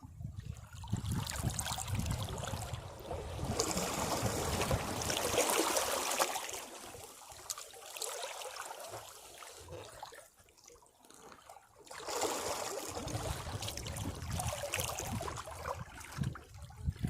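Sea waves washing over rocks: a rushing, splashing surge of water builds and fades over several seconds, drops low about ten seconds in, then a second wave comes in and washes on.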